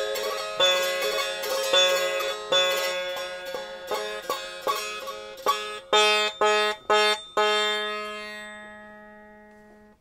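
Long-necked string instrument played with a short rod, its strings ringing over a steady low drone. Notes are struck about twice a second, then come a few sharp, quickly stopped strikes, and a last note is left to ring and fade away.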